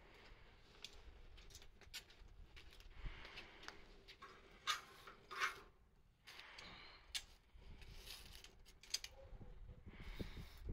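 Wood fire crackling with scattered sharp pops, two louder ones near the middle.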